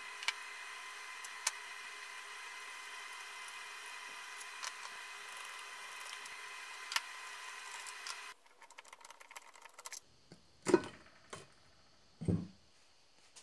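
A few sharp clicks of a wrench on the trash pump's housing bolts over a steady background hum. The hum stops abruptly, and then come several short metallic knocks and scrapes as the cast pump housing is worked loose and lifted off.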